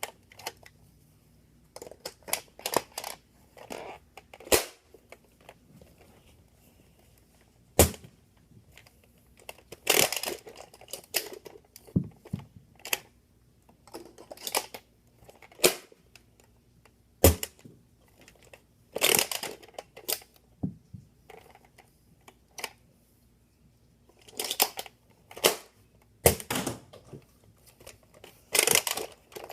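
Nerf Zombiestrike Sledgehammer dart blaster being test-fired: a few sharp shots, with bursts of clicking and clattering from handling the blaster between them.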